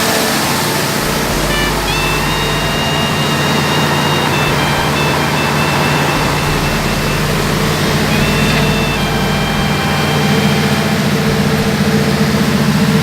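Isuzu 6BD1 inline-six diesel engine, set up with a generator head, running steadily at a constant speed, getting a little louder in the last few seconds.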